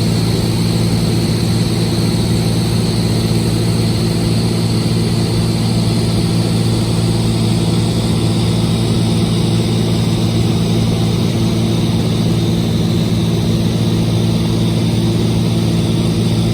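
Cessna 206H Stationair's six-cylinder Lycoming piston engine and propeller droning steadily at a constant power setting.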